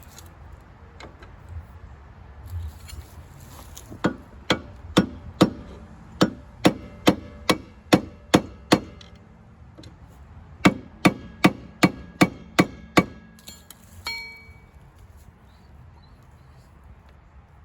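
Hammer blows in two runs, about ten strikes at roughly two a second, a short pause, then about six more, driving a part onto an EZGO ST350 golf cart's rear axle during a hub repair. The part is not yet fully seated. A brief metallic ring follows near the end.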